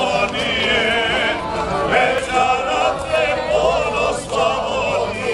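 A group of voices singing a traditional Krajina folk song together, the voices wavering and ornamented.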